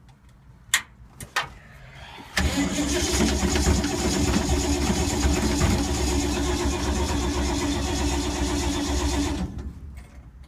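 Two sharp clicks, then the 1952 Ford's starter cranking the engine over steadily for about seven seconds without it catching, before it stops. This is a hard start on an engine that has sat for months and that the owner believes he has flooded.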